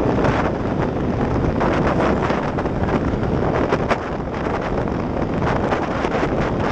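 Wind buffeting the microphone of a scooter held at about 90 km/h, with the Yamaha Mio Sporty's 115 cc single-cylinder engine running flat out under it.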